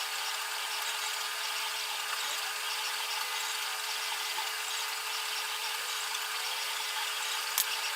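A small motor running steadily: an even whir with a constant hum, and a single sharp click near the end.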